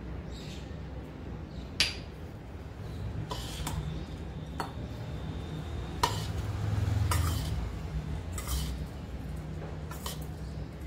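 A steel spoon clinking and scraping against a stainless-steel plate as soaked sago pearls are mixed, with several separate sharp clinks spread through.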